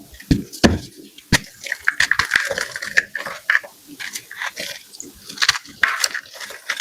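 Blocks of gym chalk being crushed: dense, irregular crunches and crackles, with a couple of deeper thuds about half a second in and a sharp crack after about a second.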